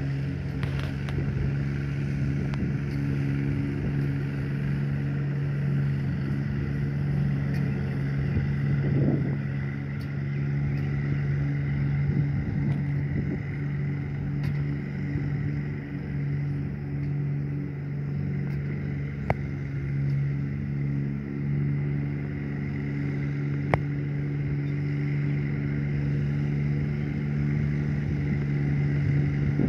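A motor or engine drones steadily at one constant pitch, with two sharp clicks in the second half.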